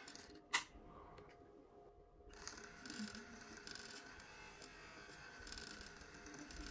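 Faint steady whine of the jet-engine model's small electric fan motor, with one sharp click about half a second in.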